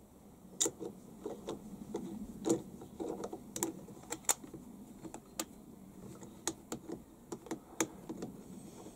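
Flat-blade screwdriver turning the main jet into a lawnmower carburettor's bore: irregular light clicks and taps of the blade in the jet's slot and against the carburettor body.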